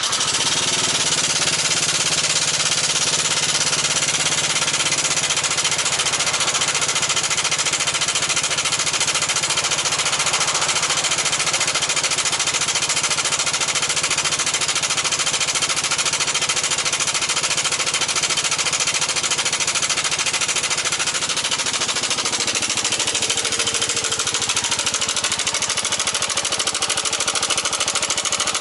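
Yamaha NMAX125 scooter's single-cylinder four-stroke engine running steadily with a rapid rattling, a 'kara-kara-kara' noise that came on suddenly at about 10,000 km.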